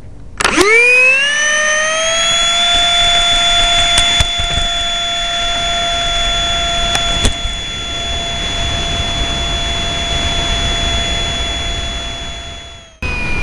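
Electric ducted fan of a foam RC jet spooling up from rest to a steady high whine in about two seconds for a grass takeoff, heard close from the onboard camera with a rushing hiss of air under it. Two short sharp knocks come about four and seven seconds in, and the sound cuts off abruptly near the end.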